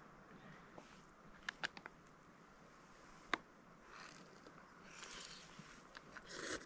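Faint crinkling of a foil freeze-dried meal pouch and a few sharp clicks of a spoon against it while eating from the pouch; the rustling comes in short bursts in the second half, loudest near the end.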